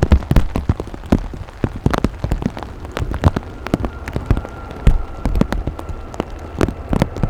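Rain, with big drops tapping irregularly and loudly close to the microphone. A faint steady tone comes in about four seconds in.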